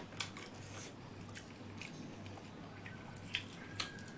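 Eating by hand from steel plates: a few faint, scattered wet clicks and smacks of chewing and of fingers mixing rice and curry, over a low steady hum.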